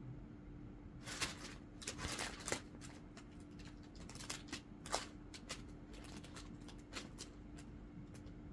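Crumpled brown kraft paper crinkling and crackling under a cat as it shifts and twists its body on the sheet, in irregular bursts starting about a second in.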